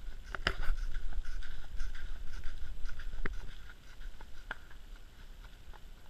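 Horse walking on a leaf-covered forest trail: irregular crunches and clicks of hooves stepping through dry fallen leaves over a low rumble on the microphone, quieter in the last couple of seconds.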